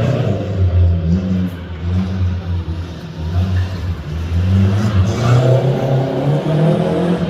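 A show car's engine running at low revs, its deep note rising and falling unevenly as the throttle is worked lightly, with no tyre squeal.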